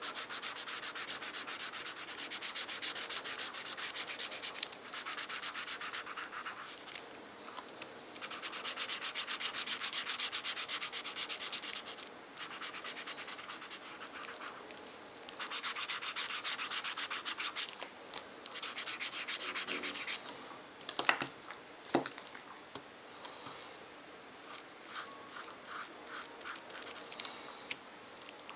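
Felt-tip marker scribbling fast back and forth on paper to colour in a drawing, in runs of quick strokes with short pauses between. There are a few sharp clicks about three-quarters of the way through, then lighter, shorter strokes near the end.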